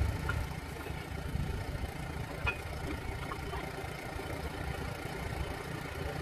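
A steady low rumble, like an engine idling, with a couple of faint metallic clicks from steel tire spoons being worked around the bead of a large backhoe tire.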